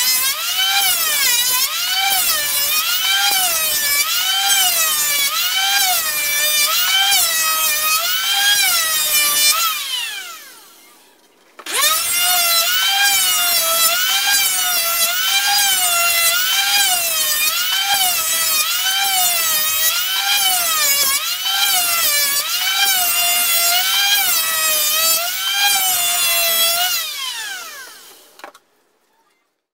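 Electric hand planer cutting pallet boards, a high whine that rises and falls in pitch about once a second. About ten seconds in it is switched off and winds down, it starts again a couple of seconds later, and near the end it is switched off and winds down again.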